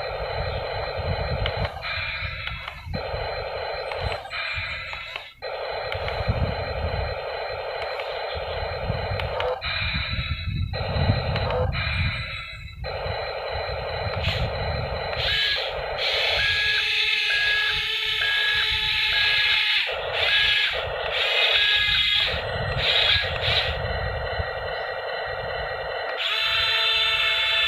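YIGONG RC toy excavator working, a buzzing electric whine that stops and restarts every few seconds as its controls are moved, with low noise underneath during the first half.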